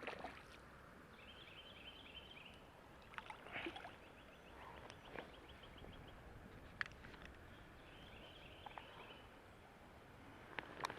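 Quiet outdoor background with scattered small clicks and knocks of a fish and fly tackle being handled close to the microphone, and three short trills of rapid high notes.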